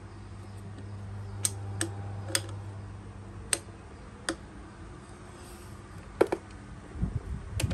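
Sharp metallic ticks of an L-shaped hex key catching and knocking on the muffler bolts of a Mitsubishi TL33 brush cutter as the bolts are undone. There are about seven irregular ticks over a low steady hum.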